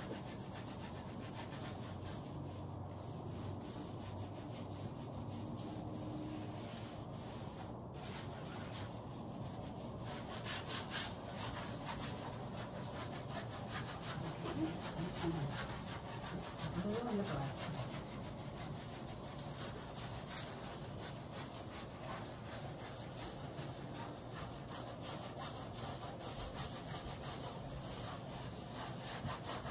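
A gloved hand rubbing and smearing wet acrylic paint across a large stretched canvas, in continuous back-and-forth strokes.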